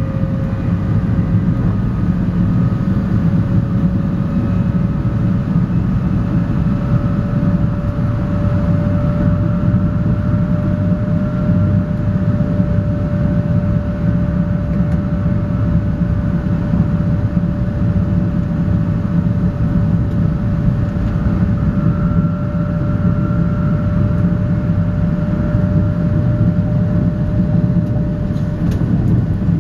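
Shinkansen train heard from inside the passenger car while running at speed: a steady low rumble with a thin whine that rises slowly in pitch as the train gathers speed.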